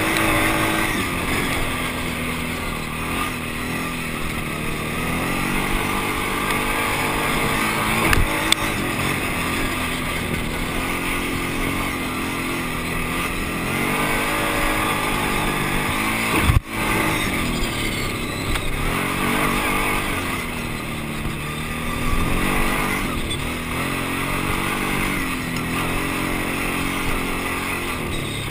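Off-road vehicle engine running under way on a dirt track, its pitch rising and falling again and again with the throttle and gear changes. A sharp knock a little past halfway.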